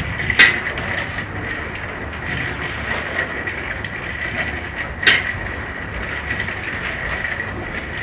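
Clockwork of a brass skeleton clock running: a steady mechanical whirr with a thin, steady high tone, and two sharp clicks, one about half a second in and one about five seconds in.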